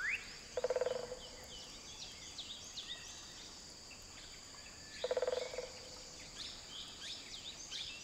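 Forest ambience: many birds chirping in short quick notes over a steady high insect drone. A low, pulsed croaking call comes twice, about a second in and again about five seconds in.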